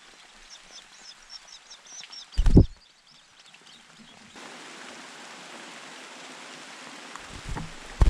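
Long-tailed shrike nestlings give faint high begging chirps, then a loud flurry of wingbeats about two and a half seconds in as the adult takes off from the nest. Near the end come more wing flaps as it lands back on the nest, over a steady background hiss.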